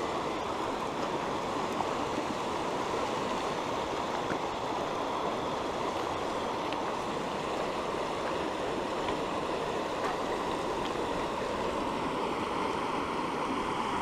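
Shallow mountain river running fast over a bed of stones and gravel, a steady rushing of water.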